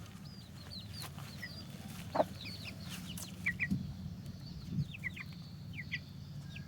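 Chickens calling: a scattered run of short, high chirps and peeps, several in quick pairs, over a low steady hum.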